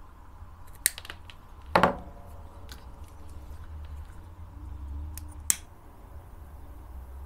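Scissors snipping thick paracord ends: a few short sharp snips, the loudest and crunchiest a little under two seconds in.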